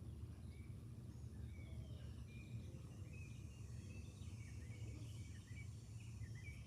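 Birds chirping repeatedly in short calls over a faint, steady low background rumble.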